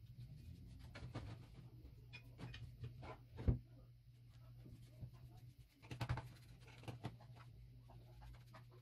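A stiff brush scrubbing a rusty metal grinder part wet with purple rust remover in a plastic tray: quiet scratching strokes with a few knocks, the sharpest about three and a half seconds in and several more around six seconds. A low steady hum sits underneath.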